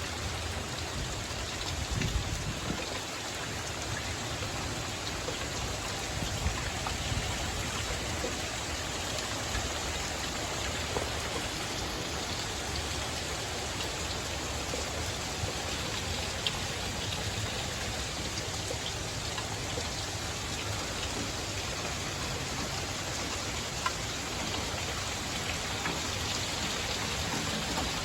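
Steady heavy rain falling, a constant hiss with scattered drops ticking on surfaces.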